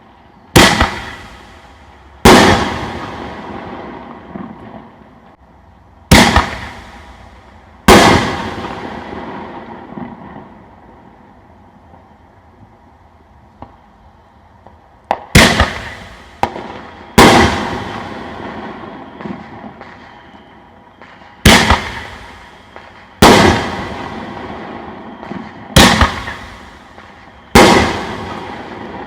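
5-inch aerial firework shells fired one after another: ten loud booms in five pairs, each pair about two seconds apart, which fits a mortar launch followed by the shell bursting in the air. Each boom trails off in a long echoing rumble.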